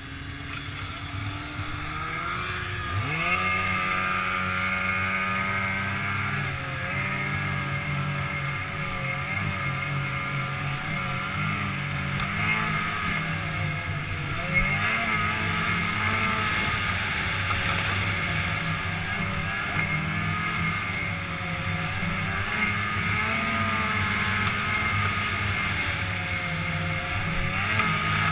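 Polaris snowmobile engine, heard from on board, picking up speed about three seconds in, then running steadily along the trail with the pitch rising and falling slightly as the throttle changes.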